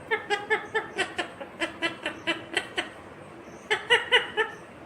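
Indian ringneck parakeet giving a rapid run of short, evenly spaced chattering notes that sound like laughter, about seven a second for nearly three seconds, then a second shorter run near the end.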